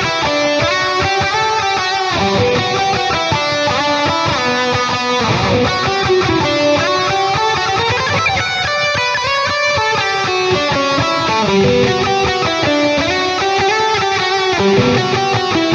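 Strandberg Boden 7 True Temperament seven-string electric guitar playing a distorted lead line, a fast run of single notes with pitch bends and slides.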